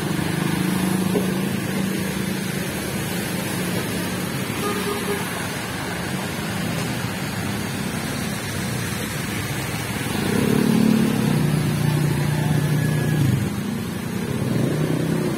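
Motor traffic driving through a flooded street: motorcycle and car engines running as their tyres push through the water, with a louder engine going past about ten seconds in.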